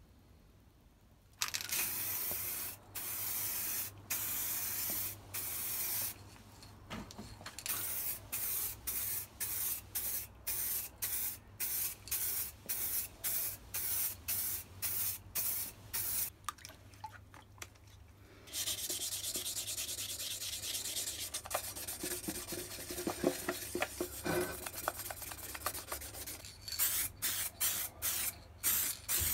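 Aerosol spray-paint can spraying in many short hisses, then a steady spray lasting several seconds, then short hisses again.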